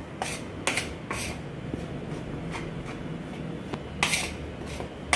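Steel spoon scraping and clinking against a stainless steel plate while stirring dry gram flour, rice flour and spices, then a hand rubbing the flour around the plate. A few light clinks, the loudest about four seconds in.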